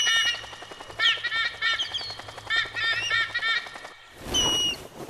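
Cartoon birds of prey, a sea eagle and an osprey, calling in quick runs of short, high chirps, three bursts in all. About four seconds in comes a swoosh with a short falling whistle.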